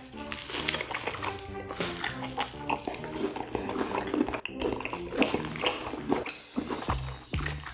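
Close-up biting and chewing sounds as a whole piece of boiled pork (suyuk) wrapped in kimchi is bitten into and chewed, with background music playing throughout.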